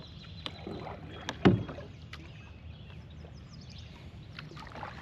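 Knocks and clicks of handling on a kayak, with one loud thump about one and a half seconds in.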